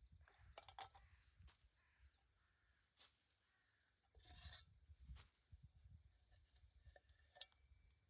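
Near silence, broken by faint scattered clicks and a brief rustle about four seconds in: a titanium camping pot set being handled and taken apart.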